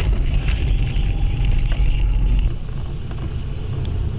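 Steady low rumble of a car's engine and tyres heard inside the cabin through a dashcam. About two and a half seconds in it cuts abruptly to a quieter, thinner rumble of the same kind.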